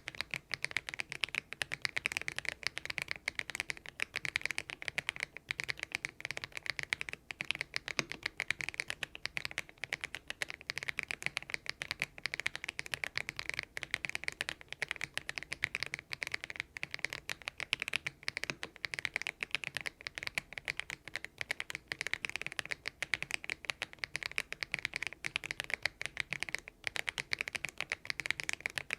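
Fast, continuous typing on a Thinkway TV108 mechanical keyboard fitted with hand-lubricated Kailh Box Aurora Ice Cream linear switches: a steady stream of keystroke clacks.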